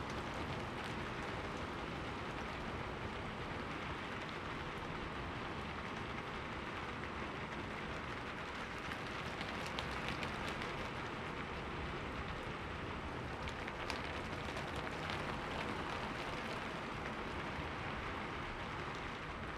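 Steady rain falling: an even hiss with a few sharper drop splashes now and then.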